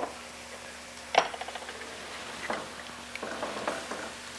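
Kitchen handling noise: a sharp knock about a second in, then lighter taps, clinks and a short rattle as spice jars and utensils are picked up and set down, over a faint steady sizzle from a pan.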